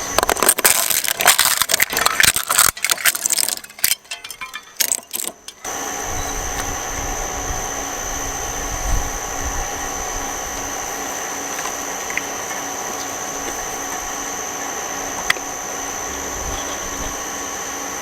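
A shredder crunching and cracking material between its cutters, thinning out and stopping about five seconds in. It then runs empty with a steady motor hum and a high whine.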